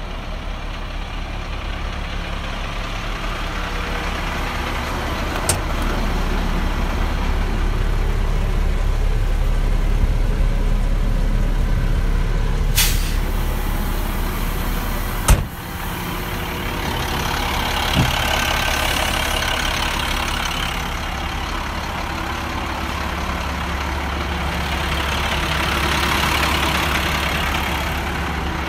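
Diesel engine of a 2001 International 4900 dump truck idling steadily. There are a few sharp clicks, with a loud knock about halfway through, and a hiss that swells and fades in the second half.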